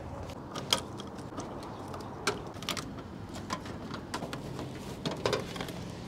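Small, irregular clicks and rattles of plastic wiring connector plugs being pried and pulled off an air-conditioning outdoor unit's control board with pliers, over a steady low hum.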